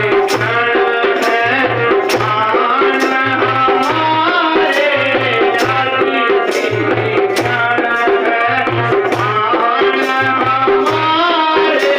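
Music with a steady, repeating drum beat under a melody line.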